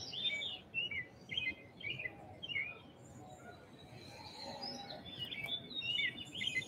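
Songbirds chirping: a run of short, quick, falling chirps that thin out midway and pick up again near the end.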